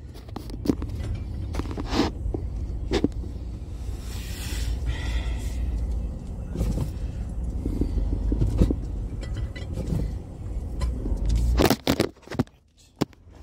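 Low rumble of a pickup truck driving on a wet road, heard from inside the cab, with scattered knocks. About twelve seconds in the rumble cuts off and a few clicks of the phone being handled follow.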